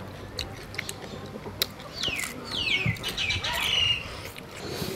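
Crisp fried chicken skin crackling in a few sharp crunches as it is bitten, then a bird calling with a quick series of falling whistled notes, the loudest part, for about two seconds near the middle.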